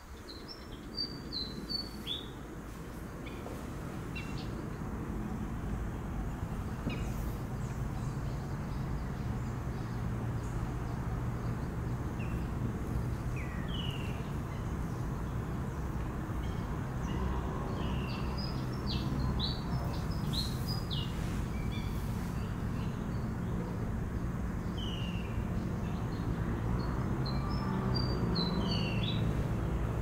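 Wading birds giving short, high, downward-slurred calls in scattered clusters over a steady low background noise.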